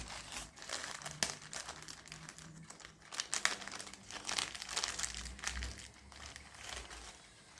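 Small plastic packet of metal nuts and bolts crinkling as it is handled and opened, with many irregular rustles and small clicks.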